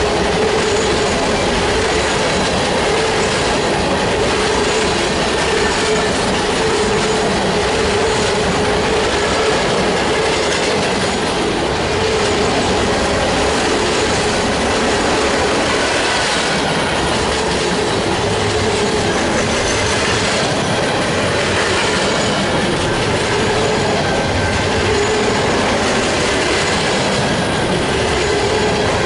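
Freight cars of a Union Pacific mixed freight train rolling past close by: a steady, loud rumble and clatter of steel wheels on the rails, with a steady whine held underneath.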